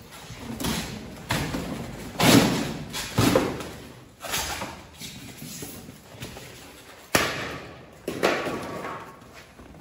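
Cardboard shipping box and its packing being handled: a run of thumps, knocks and scraping cardboard as the flaps are pulled open and the boxed mini bike is shifted and lifted.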